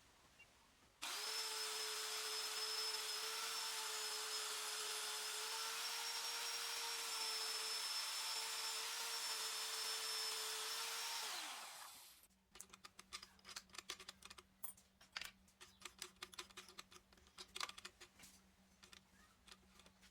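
An electric power tool runs at steady speed for about ten seconds, then is switched off and winds down with falling pitch. Scattered clicks and knocks of metal being handled follow.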